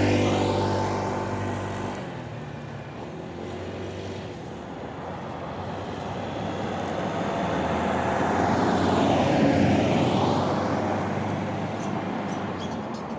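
Road traffic: a motor vehicle passes close with a low engine drone as the sound opens, fading over the next two seconds. A second vehicle's tyre and engine noise rises and passes about nine seconds in, then fades.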